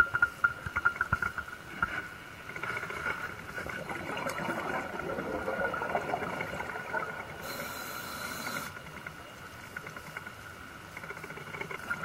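Scuba diver breathing through a regulator underwater: a gurgle of exhaled bubbles in the first two seconds, then a short hiss of an inhalation about three-quarters of the way through.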